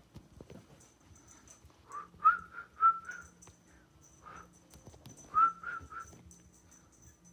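American Cocker Spaniel puppy whimpering: short, high squeaky whines that rise a little and hold, in a run of about four, then one on its own, then three more.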